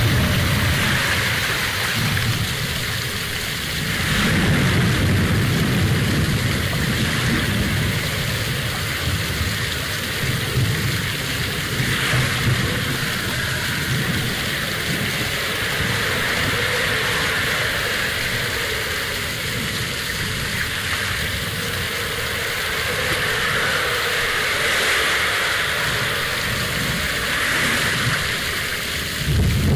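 Steady rushing noise of water, with low rumbling that swells and fades several times.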